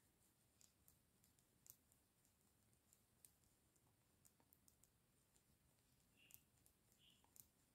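Near silence, with a few faint, sparse clicks of knitting needles as stitches are worked.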